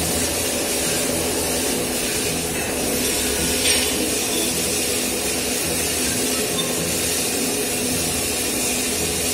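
Steady, loud hiss throughout, with a single short metal clink a little under four seconds in as a metal workpiece is set against the jaws of a lathe chuck.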